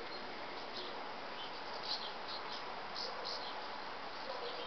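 Flock of small birds perched on a radio mast antenna, chirping and twittering in short, irregular high calls over a steady background hiss.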